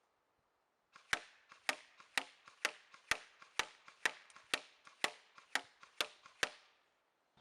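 Electric airsoft MP5 firing twelve single shots in a steady rhythm, about two a second, each a sharp crack.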